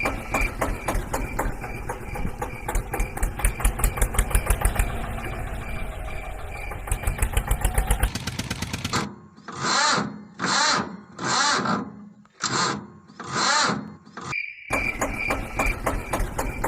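Tractor engine running with a fast, even putter. Partway through it gives way to five short separate bursts of sound, each well under a second, and then the engine putter resumes.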